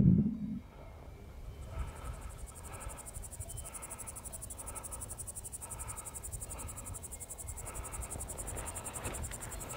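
Insect trilling steadily, a high, fast, evenly pulsed chirr that starts about one and a half seconds in. Beneath it come soft, regular footsteps of a hiker walking on the trail.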